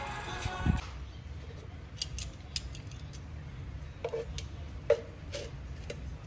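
Kitchen tongs clicking and tapping against an electric grill plate while meat is turned, a handful of sharp separate clicks over a faint low rumble. Music cuts off in the first second.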